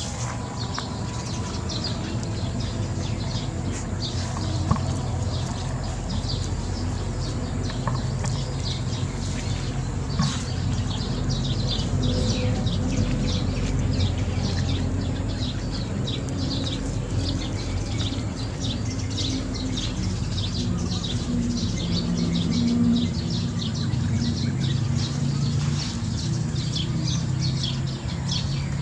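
Small birds chirping rapidly and continually over a low steady rumble.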